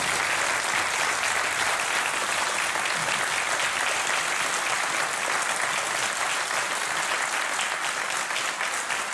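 Studio audience applauding steadily, dense clapping of many hands.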